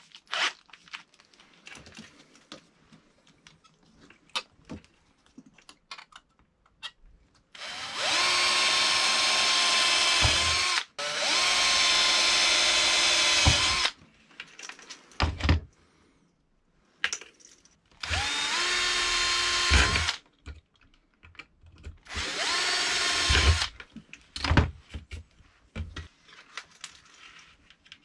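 Bosch GSR 120-LI cordless drill/driver running in four separate bursts of a few seconds each, every one spinning up quickly to a steady whine and stopping sharply. Light clicks and knocks of handling come between the runs.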